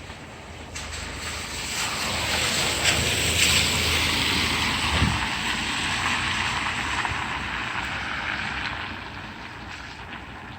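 A car driving past: its engine and tyre noise swell over a couple of seconds, peak mid-way, and fade out by about nine seconds in.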